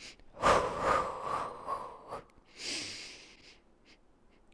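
A woman breathing audibly through a Pilates Hundred: a long breath out in the first two seconds, then a shorter hissing breath about two and a half seconds in.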